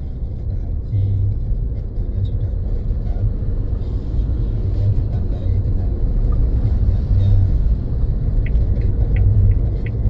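Steady low rumble of a car driving on the road, with a few short high-pitched ticks near the end.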